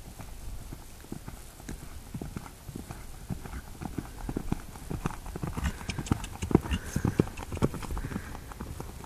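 Thoroughbred gelding's hooves cantering on sand arena footing, a steady run of dull thuds that grows louder about halfway through as the horse comes close.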